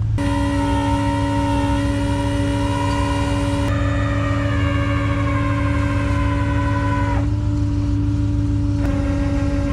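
Rollback tow truck's winch pulling a stuck van out of snow under load, a steady whine over the truck engine's low rumble. The whine's tone shifts slightly about four and seven seconds in.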